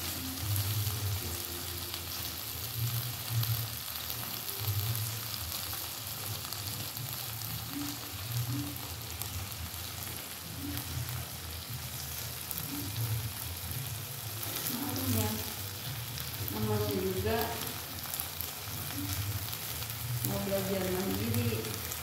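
Small shrimp sizzling steadily as they fry in a non-stick wok over a gas burner, stirred now and then with a spatula.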